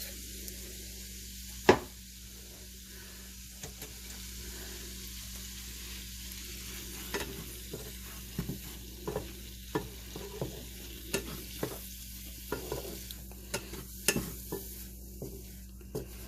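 A mixture of turmeric, coconut oil and liver broth sizzling in a hot pan while it is stirred with a spoon. There is one sharp knock of the spoon on the pan about two seconds in, and frequent light taps and scrapes from about seven seconds on.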